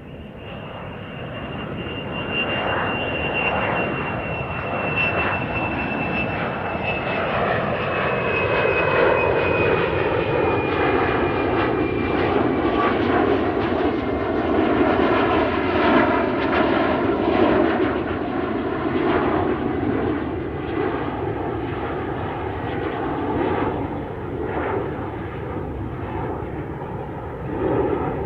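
Airplane taking off, its engine noise swelling over the first several seconds and then holding loud, with a high whine that slowly falls in pitch.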